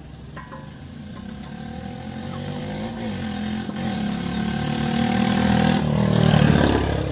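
A motor vehicle's engine running and passing close by: it grows steadily louder, peaks near the end, then starts to fade.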